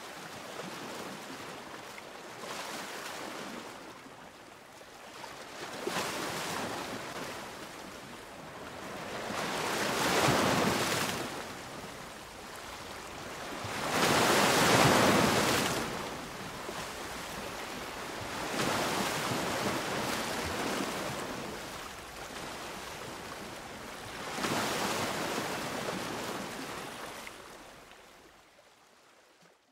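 Ocean surf: waves washing in, heard as swells of rushing noise that rise and fall every few seconds, two of them much louder in the middle. It fades out near the end.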